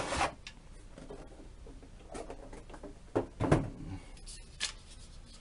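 A few soft, irregularly spaced knocks and rustles from objects being handled, with two slightly louder knocks about three and a half seconds in.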